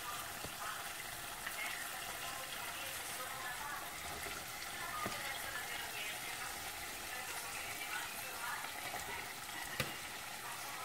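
Pot of tomato sauce sizzling steadily on a gas hob, with a few light clicks and scrapes as dry pasta is tipped in and stirred with a wooden spoon.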